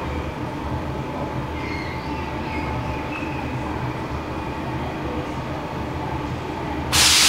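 Stockholm metro train at the platform: a steady low rumble with faint high squeals. Near the end a loud hiss starts suddenly.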